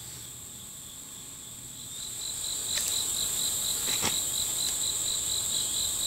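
Insects calling in summer woods: a steady high buzz, joined about two seconds in by a louder pulsing call about four times a second. Two faint clicks are heard in the middle.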